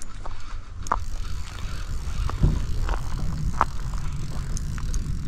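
Spinning reel being cranked to bring in a hooked trout, over a steady low rumble, with a few sharp clicks scattered through.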